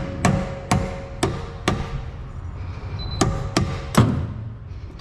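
A hammer striking a wrench to break loose a driveshaft bolt that was set with Loctite. There are four ringing metal strikes about half a second apart, a pause of about a second and a half, then three more.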